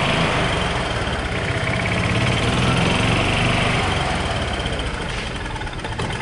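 2006 Club Car golf cart's petrol engine running steadily on its first run after a new governor cable was fitted, getting a little quieter over the last couple of seconds.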